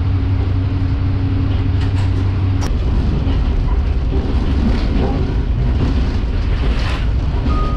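Diesel railcar running on the Kominato Railway: a steady engine drone that drops away about two and a half seconds in, with a click, leaving the rumble of the wheels on the rails.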